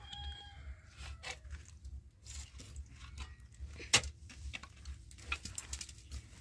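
Wooden roof poles and boards creaking and knocking as they are pushed and shifted by hand, with scattered small cracks and one sharp knock about four seconds in.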